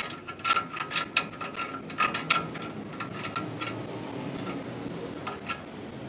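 Toothed star-wheel adjuster of a 2002 GMC Sierra's drum-in-hat parking brake being turned, clicking tooth by tooth in quick irregular runs, then only a couple of single clicks near the end. It is being backed out to spread and tighten the parking brake shoes.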